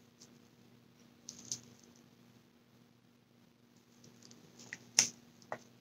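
Scattered light clicks and taps of a stir stick and small plastic mixing cups being handled over a silicone resin mold, with a sharper click about five seconds in. A faint steady hum runs beneath.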